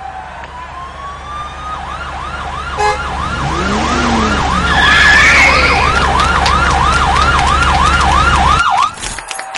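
Police car siren rising in pitch, then wailing up and down about three times a second over a low vehicle rumble. It grows louder as it approaches and cuts off abruptly near the end.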